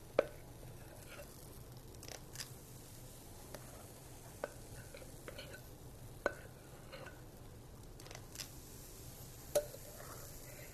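Metal ice cream scoop (dasher) scooping pancake batter from a bowl and releasing it onto a griddle: a few sharp clicks a few seconds apart, with softer scrapes and ticks between them.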